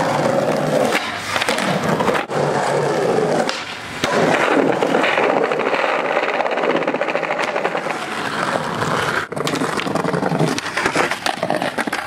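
Skateboard wheels rolling hard over stone paving tiles, with scattered clacks and knocks from the boards. The sound breaks off for an instant about two seconds in and again after about nine seconds, then carries on.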